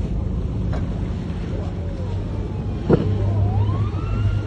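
Motorboat engine running steadily, with a single sharp knock about three seconds in.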